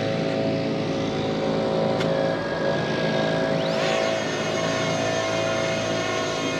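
Lawnmower engines drone steadily in the background. About three and a half seconds in, the Fimi X8 Mini's motors spin up with a rising whine, and its propellers then hum steadily at a high pitch as it lifts off from the pad on auto takeoff.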